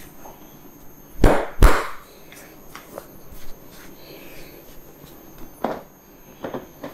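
Massage slaps: two loud hand strikes about half a second apart about a second in, followed by several lighter taps and clicks.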